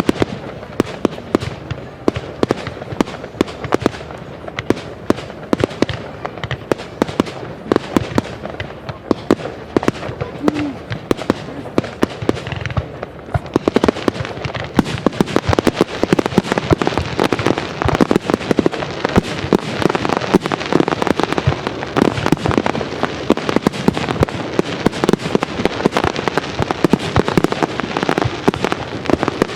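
Fireworks display: a dense, continuous run of bangs and crackling shell bursts that grows busier and louder about halfway through.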